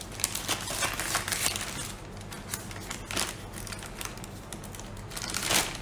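Scissors snipping through a plastic mailing bag, a quick run of sharp snips and crackles, with the plastic crinkling as the cut bag is pulled open.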